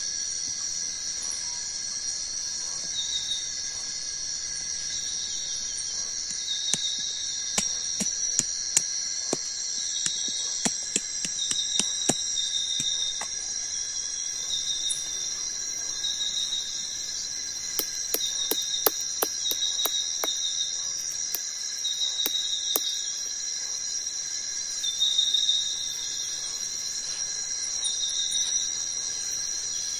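Steady rainforest insect chorus, several high, unbroken tones, with a short chirp repeating every second or two. Over it come clusters of sharp clicks and knocks from thin wooden sticks being handled and worked, about a quarter of the way in and again past the middle.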